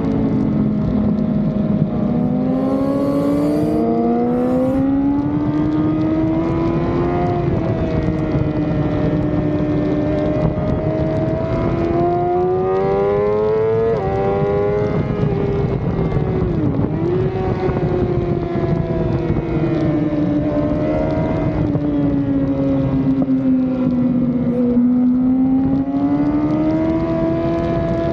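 Sport motorcycle engine heard from on board at speed, its note climbing and falling with the throttle through corners and straights, with a sharp drop in pitch at a gear change about halfway through. Steady wind rush runs under it.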